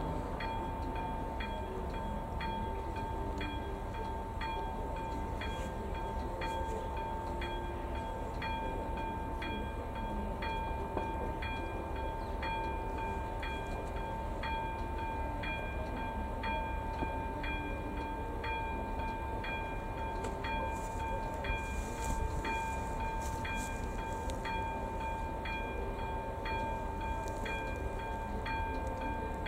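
Electronic level-crossing warning bell (AŽD ZV02) sounding while the crossing lights flash: a steady electronic tone with quick, even strokes repeating in a constant rhythm, signalling that a train is approaching.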